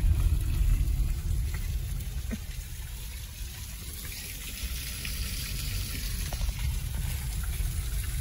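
Low rumble of a car driving slowly, heard from inside the cabin, with a steady hiss over it; the rumble is loudest for the first couple of seconds, then eases off.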